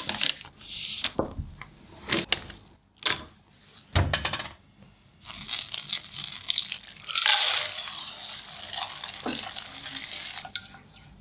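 Crinkling and a few knocks as a foil-wrapped block of butter is handled. Then butter sizzles as it melts in a pan, with a silicone spatula stirring and scraping; the sizzle is loudest about seven seconds in.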